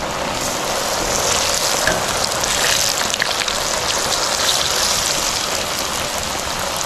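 Batter-coated chicken breast pieces deep-frying in hot oil: a steady sizzle with scattered small pops. The sizzle swells about a second in and eases a little toward the end.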